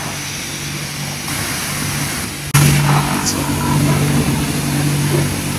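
Self-service car wash high-pressure washer: a steady pump hum under the continuous hiss of the water jet. About halfway through the sound cuts out for an instant and comes back louder.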